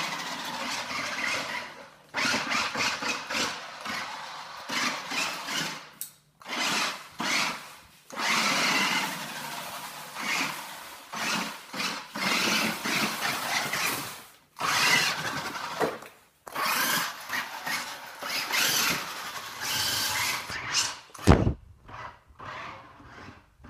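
Small electric motor and gears of a toy truck whirring in repeated bursts of a second or two, stopping and starting as it drives across a wooden floor. Near the end a few dull thumps.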